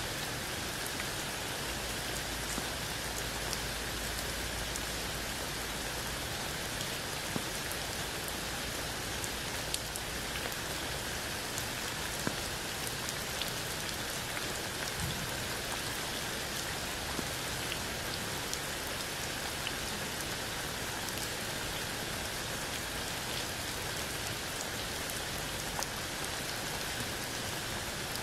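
Steady rain falling under a tree onto wet ground and a puddle, an even hiss with scattered louder single drops.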